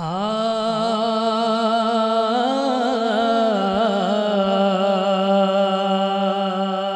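A male voice singing without accompaniment, holding one long drawn-out note with a brief wavering ornament near the middle: the opening greeting of a naat-style devotional recitation stretched into song.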